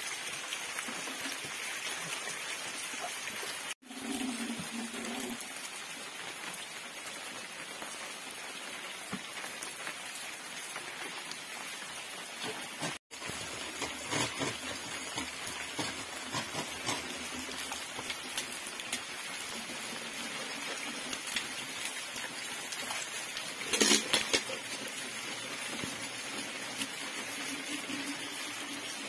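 Steady rain pattering on surfaces, a continuous even hiss, cut off for an instant twice. About 24 seconds in comes a short cluster of louder knocks.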